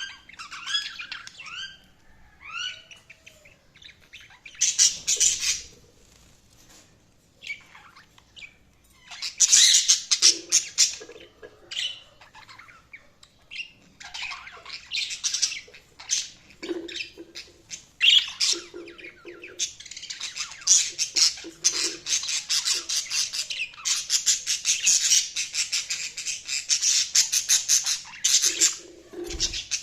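Budgerigars chattering and warbling in bursts: a few short rising chirps at first, then rapid busy chatter that comes and goes and runs almost without a break through the second half.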